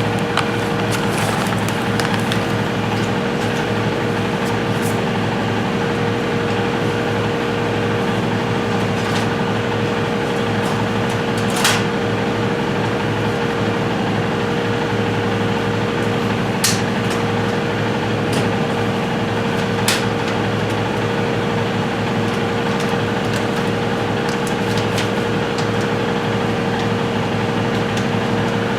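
Steady mechanical hum with a constant tone, unchanging throughout, with a few sharp clicks and taps from small parts being handled, the clearest about halfway through.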